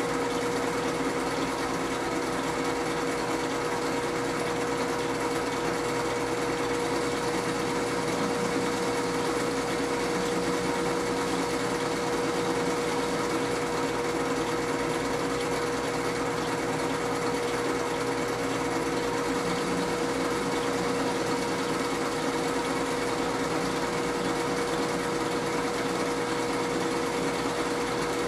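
Metal lathe running steadily under a turning cut, its motor and drive giving a constant whine with no change in speed.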